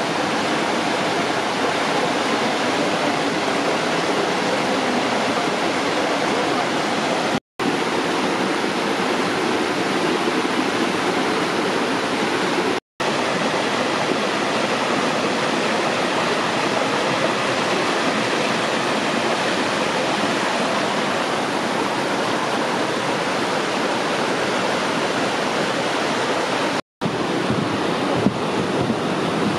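Steady rush of a small mountain stream spilling in low cascades over moss-covered boulders, broken three times by a split-second silent gap.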